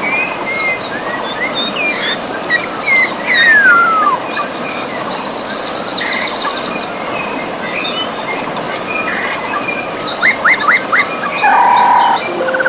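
A river rushing steadily, with several birds singing over it in varied chirps and whistles: a long falling whistle about three seconds in, and a run of quick rising notes near the end.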